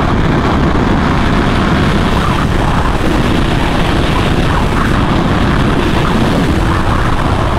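Motorcycle riding along: steady wind rush over the microphone with the engine running underneath.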